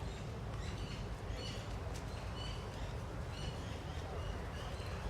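Birds chirping: short high calls repeated every half second or so, over a steady low rumble of city background.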